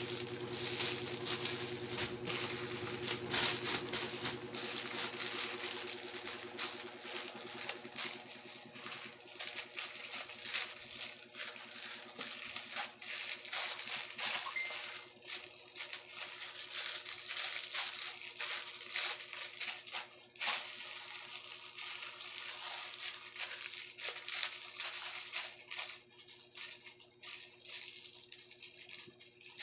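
Thin plastic packaging bags crinkling and rustling as they are handled and unwrapped, busiest in the first half and sparser toward the end, over a faint steady hum.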